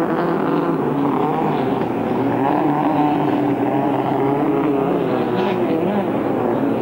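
Inboard racing hydroplane engine running hard, its pitch wavering up and down.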